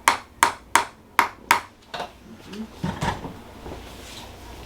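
Sharp, quick taps from a chiropractic tapping adjustment on the patient's lower back: five in about a second and a half, then they stop. A few softer knocks and movement on the treatment table follow.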